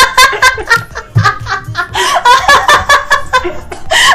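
A woman laughing hard in rapid, repeated bursts of high-pitched laughter.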